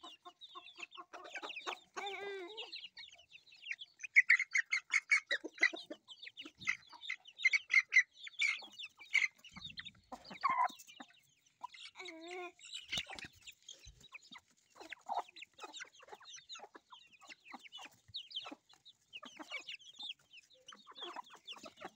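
Young chickens clucking and chicks peeping in quick, high, chirpy calls, busiest and loudest a few seconds in.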